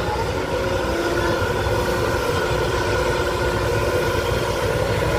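Backhoe's diesel engine running steadily while it digs soil, a continuous low throb with a steady mechanical hum.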